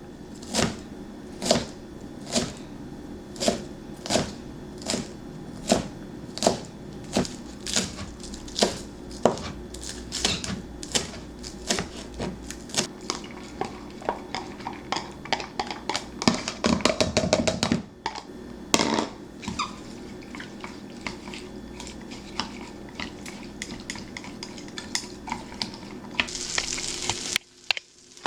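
Sharp knocks of kitchen utensils in street-food preparation, about one a second at first and speeding up to several a second midway. A short hiss follows near the end.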